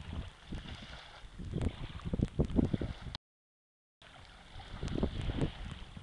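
Wind buffeting the microphone in gusts, a low rumble that grows stronger about halfway through. The sound cuts out completely for under a second just after the middle.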